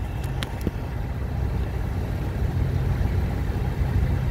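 A steady, low engine idle rumble, with a few light clicks in the first second.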